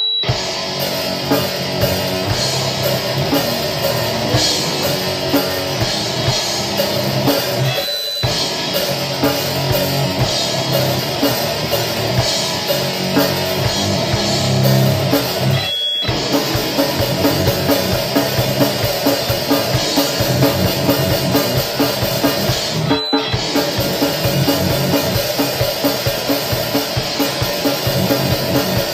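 Grindcore band recording: distorted guitars, bass and fast, pounding drums in a dense wall of sound. It kicks in suddenly at the start and stops for an instant about 8, 16 and 23 seconds in.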